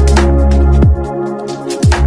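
Bass-heavy electronic trap music: a deep sustained sub-bass with pitch-dropping bass hits, snare and hi-hat strikes, and held synth tones.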